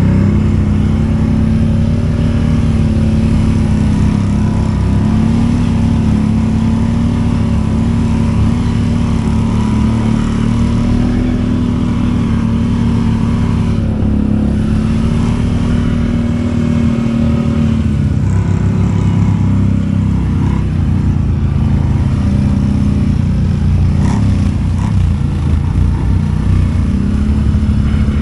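Quad bike (ATV) engine running under way at fairly steady revs, with the note wavering a little; the revs ease off about two-thirds of the way through and pick up again near the end.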